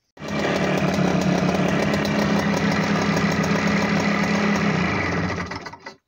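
Trials motorcycle engine starting and running steadily for about five seconds, then cutting out and dying away near the end as the newly wired kill switch is tested.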